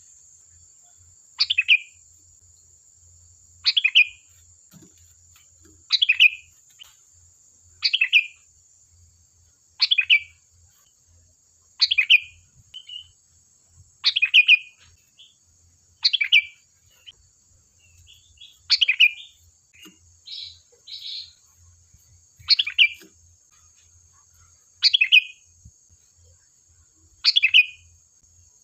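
Sooty-headed bulbul (kutilang) calling: the same short, bright phrase, starting high and dropping, repeated about every two seconds, with a couple of softer notes between calls midway through.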